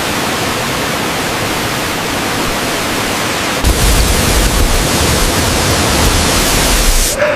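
Steady roar of a large waterfall's rushing water, which gets louder and deeper about three and a half seconds in, then cuts off just before the end.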